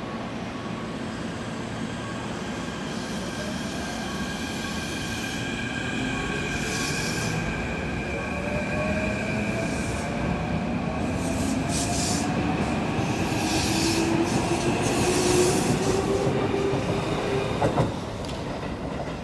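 Keikyu 1500 series electric commuter train pulling away and accelerating, its motors whining in tones that climb slowly in pitch over rumbling wheel and rail noise. It grows louder as it goes, with a few brief high squeals and a sharp click near the end.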